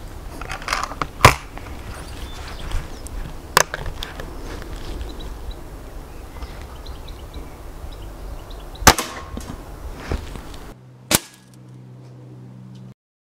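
Remington Express .177 spring-piston break-barrel air rifle being readied and fired: several sharp clacks and the crack of the shot, the loudest about a second in and another just before nine seconds. Near the end, one more sharp click over a low hum.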